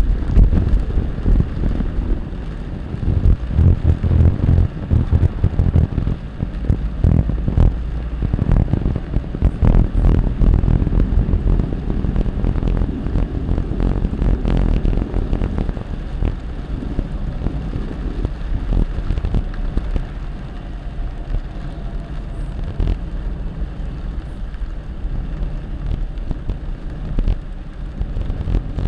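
Rainstorm noise: a loud low rumble of wind buffeting the microphone, with rain and many sharp taps, heaviest in the first half.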